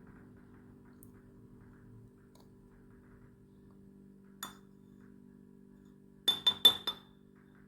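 Four quick, sharp clinks of a utensil against glass near the end, after a single fainter click, over faint steady background music.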